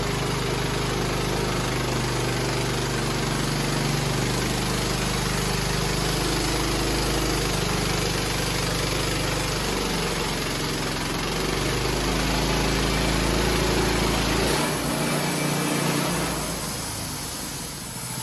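An engine running steadily, with a low drone and a broad hiss over it. About two-thirds of the way through the deep drone drops away, leaving a higher hiss.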